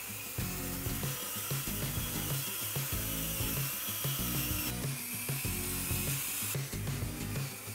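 Background music with a stepping bass line, over the high whirring of a radio-controlled Bruder toy tractor's small electric motor, which changes abruptly about five seconds in and again a couple of seconds later.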